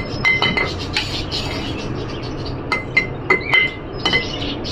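Spoons clinking against a glass jar as crumbled jaggery is spooned in, a handful of sharp taps, each with a short ringing note of the glass, bunched near the start and again about three seconds in.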